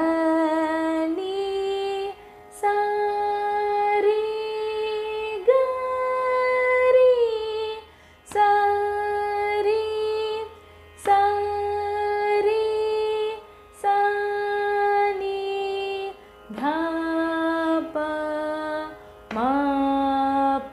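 A woman singing a Carnatic varisai exercise in the upper octave (tara sthayi) in sargam syllables. She holds each note for a second or two, steps up and down in pitch with slides between notes, and breaks briefly between phrases.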